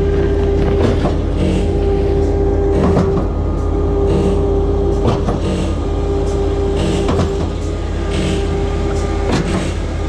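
Mud Demon concrete line pump, driven by a skid steer's hydraulics, pumping concrete. The machinery runs steadily, with a knock about every two seconds as the pump's pistons change stroke.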